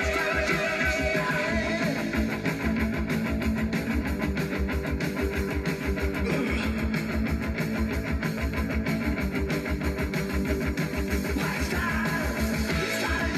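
Rock music with guitar over a steady, even drum beat.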